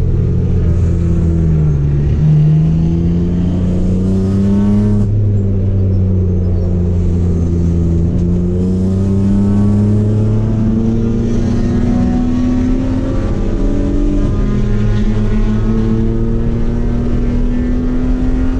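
Race car engine heard from inside the cockpit on track, running hard: the pitch dips about two seconds in, then climbs slowly and steadily, with small drops near five and fourteen seconds.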